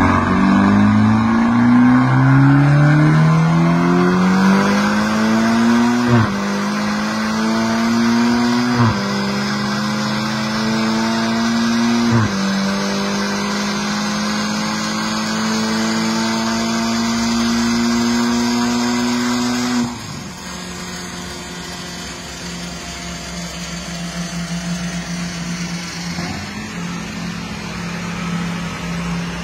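Ferrari Portofino's twin-turbo V8 with a Tubi Style aftermarket exhaust, run on a chassis dynamometer: the engine note climbs steadily in pitch, falls sharply at three upshifts about 6, 9 and 12 seconds in, then holds a steady high note. About two-thirds of the way through the throttle is let off and the sound drops to a quieter, lower steady running note.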